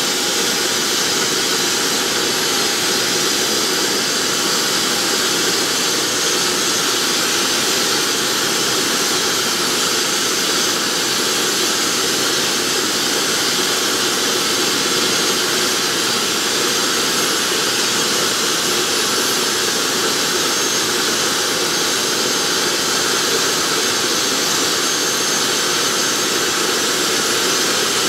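Homemade turbojet engine, built around a turbocharger, running at a steady speed: a constant loud rushing roar with a faint high whine on top, with no change in pitch or level.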